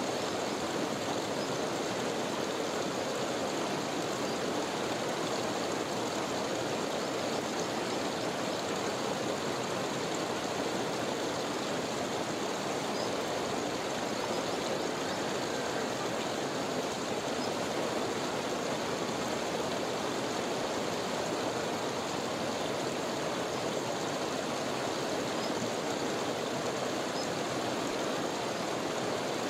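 Glacier meltwater running through a snow-and-ice cave: a steady, even rush of water that never changes.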